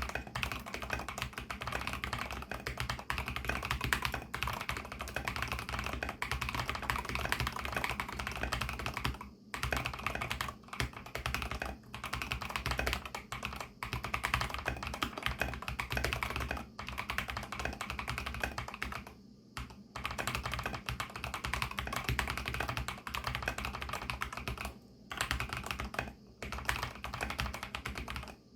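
Continuous fast typing on an mStone Groove T mechanical keyboard with MMD Milky linear switches and MA-profile keycaps, fully lubricated and packed with silicone dampening. Dense key clacks are broken by a few brief pauses.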